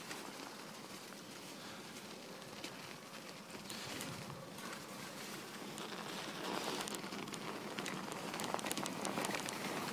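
Footsteps crunching through deep snow, with scattered crackles and clicks, growing louder in the second half.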